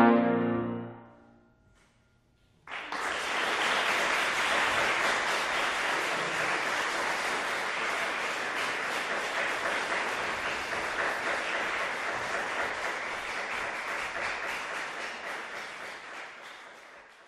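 The final trombone and piano note dies away within the first second. After a short silence an audience breaks into applause about two and a half seconds in, which carries on steadily and then slowly fades out near the end.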